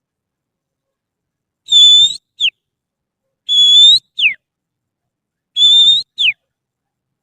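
Finger whistling through the little fingers in imitation of an oriental magpie-robin (kacer) song: three phrases about two seconds apart, each a held high note that rises at its end, then a quick falling note.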